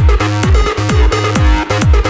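Electronic dance music with a steady four-on-the-floor kick drum, about two beats a second, over sustained synth chords.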